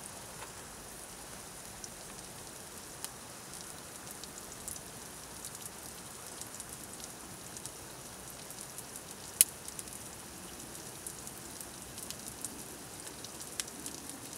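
Eggs and cheese frying in a pan over a camping gas stove: a steady sizzle with scattered small crackles and one sharp pop a little past the middle.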